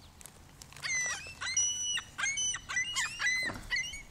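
Birds calling: a quick run of short, high calls, some curling down and some held level, from about a second in until near the end.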